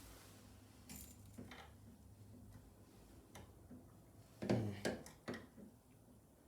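Scattered small clicks and taps of a screwdriver and copper wire being worked at an electrical outlet's terminal screws, with a cluster of louder knocks about four and a half to five seconds in.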